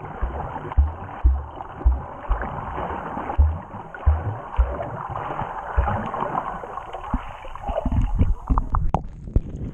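Muffled underwater sound picked up by a GoPro held under the sea surface: a dull wash of water with a run of low thumps about two a second in the first half, fading out. Near the end come sharp little clicks and splashes as the camera nears and breaks the surface.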